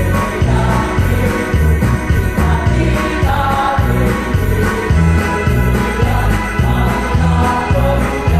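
Music with a steady bass beat, about two beats a second, under sustained pitched parts.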